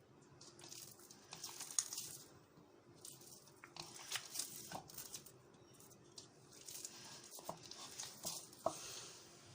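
Hands kneading semolina dough, giving faint, irregular squishing and crackling rustles in three or four short bursts.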